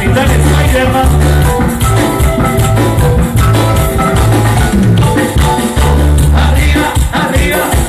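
Loud Latin dance music with a heavy, repeating bass line, playing for a procession of masked convite dancers.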